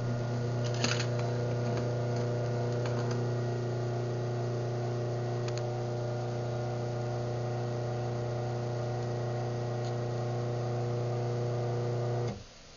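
Craftsman 139.53930DM garage door opener running a close cycle: a steady motor hum with a click about a second in, stopping abruptly after about twelve seconds when the door reaches the floor.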